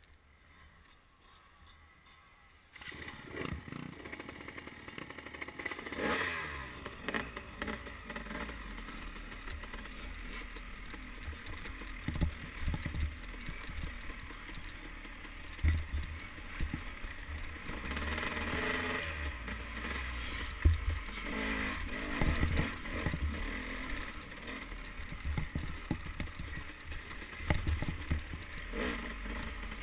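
Dirt bike engine revving up and down while riding a rough trail, with wind rumbling on the microphone and repeated knocks from the bumps. It starts abruptly about three seconds in, after near silence.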